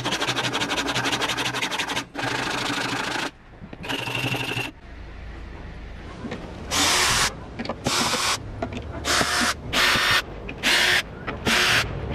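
A small wooden part rubbed by hand on a sheet of sandpaper laid flat: fast, scratchy sanding in a few longer runs at first, then separate back-and-forth strokes a little over one a second.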